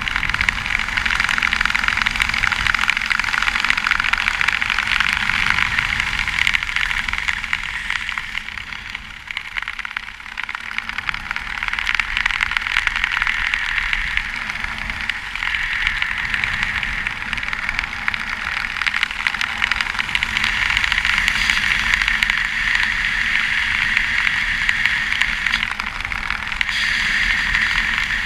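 Wind rushing over a helmet camera's microphone during a parachute descent under an open canopy, easing briefly about ten seconds in.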